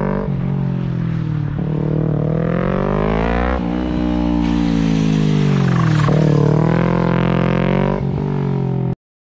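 Motorcycle engine running under varying throttle as the bike is ridden through turns, its pitch rising and falling smoothly with short breaks every couple of seconds. It cuts off suddenly near the end.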